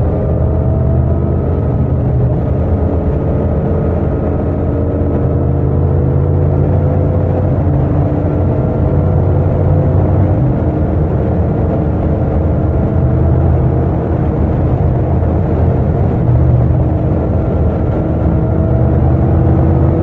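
Yamaha MT-07's 689 cc parallel-twin engine pulling steadily in fifth gear at highway speed, its pitch slowly rising as the bike gains speed, heard from the rider's seat.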